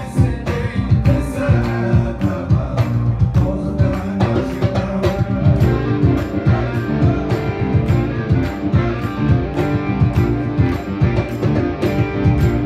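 Tuareg desert-blues band playing live: electric guitars weaving riffs over bass and a steady drumbeat, with singing.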